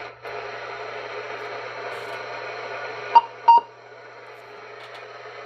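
Static hiss from a Cobra 142 GTL CB base station's speaker at high volume over a low steady hum, with no whistle squeal in it. About three seconds in come two sharp clicks, and after them the hiss is quieter.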